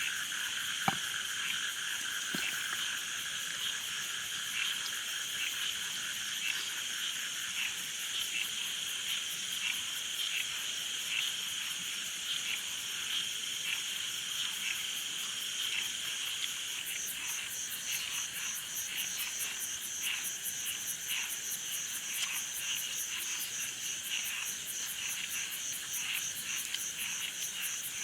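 Chorus of frogs and insects calling in steady, rapidly pulsing trills. A sharp click about a second in is the loudest moment, with a softer one shortly after.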